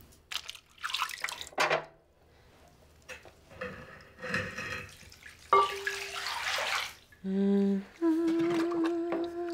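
Bath water splashing and dripping as hair is washed in a bathtub, then from about seven seconds in a woman humming a few long held notes.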